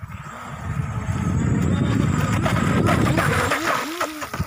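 Brushless electric motor of a Volantex Atomic tunnel-hull RC boat running on the sea, with a whine that swoops up and down in pitch near the end, over a heavy low rumble.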